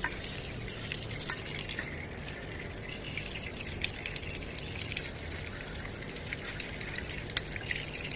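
Water running from an outdoor tap and splashing onto wet, muddy ground, with many small drips and splashes.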